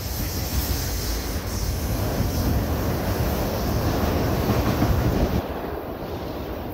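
Freight train of enclosed autorack cars rolling past: a steady rumble of steel wheels on rail. The noise eases a little over five seconds in.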